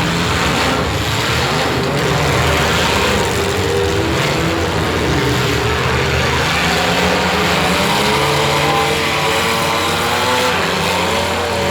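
Several compact demolition-derby cars' engines running and revving together, their pitches rising and falling, over a steady loud din.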